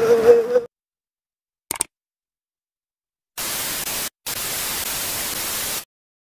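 Flat white-noise static hiss lasting about two and a half seconds with a brief break in the middle, starting and stopping sharply out of dead silence. Before it, the outdoor sound with a held tone cuts off abruptly.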